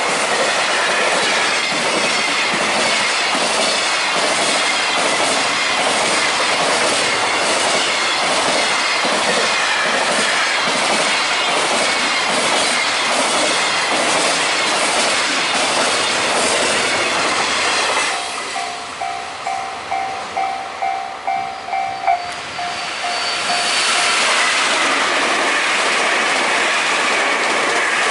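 Trains passing at speed over a level crossing, with loud running noise and a regular clickety-clack of wheels over rail joints. In a lull about two-thirds of the way through, the Japanese crossing bell is heard ringing in quick repeated dings before another train passes and covers it.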